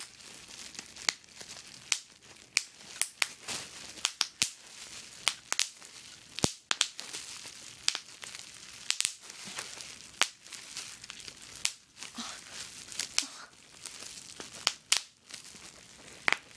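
Small-bubble plastic bubble wrap being squeezed and twisted by hand: the sheet crinkles steadily, with sharp, irregular pops as single bubbles burst, roughly two a second.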